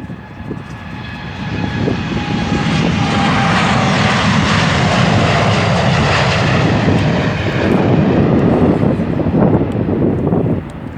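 Jet airliner's engines passing close by: the roar builds over the first couple of seconds, holds loud, then falls away near the end.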